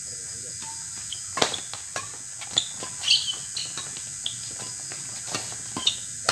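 Badminton rackets striking a shuttlecock in a fast doubles rally: a string of sharp pops, roughly one every half second to a second, mixed with short high squeaks of court shoes. A steady high chirring of night insects runs underneath.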